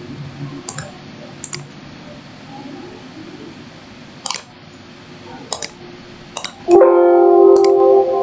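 Computer mouse clicking, scattered single clicks. About seven seconds in, a loud electronic chime of several held tones sounds for about a second and a half: a computer's system alert tone.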